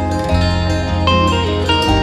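Background music led by plucked guitar notes over a steady bass line.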